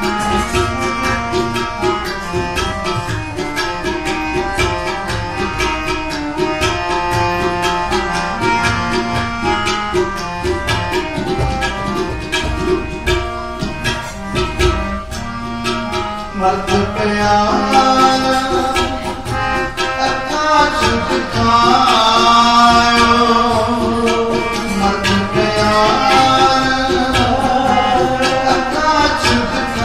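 Harmonium playing a melody over a steady run of percussion strokes. About halfway through, a man's voice joins in singing with it and the music grows louder.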